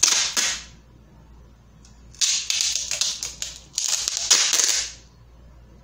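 Adhesive tape pulled off its roll and pressed around a glass jar: crackly, hissing pulls, one short at the start and two longer ones from about two seconds in.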